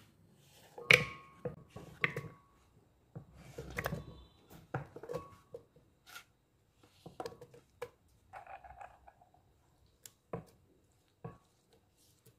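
Kitchen preparation sounds: irregular knocks and taps of a knife or utensils on a cutting board, with a few short ringing clinks of dishes and brief scrapes.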